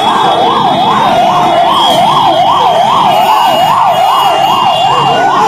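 Fire engine siren on a fast yelp, its pitch sweeping up and down about three times a second, over the noise of a large crowd.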